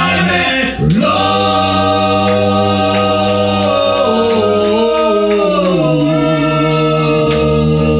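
Male a cappella vocal quartet singing in close harmony, holding long sustained chords that shift to new notes about halfway through.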